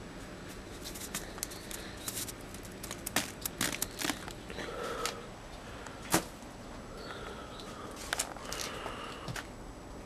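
Footsteps crunching in snow with scattered sharp clicks at uneven spacing, the loudest a single click about six seconds in, and a few faint chirps.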